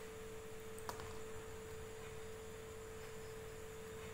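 Steady faint single-pitch electrical hum under low background hiss, with one soft click about a second in.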